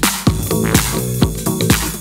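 Electronic dance music played live on synthesizers and drum machines: a steady four-on-the-floor kick drum about twice a second under a stepping synth bass line.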